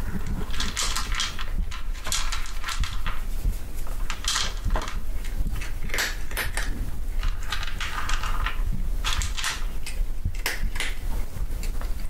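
A cat crunching dry kibble, chewing in irregular clusters of crisp crunches, over a steady low hum.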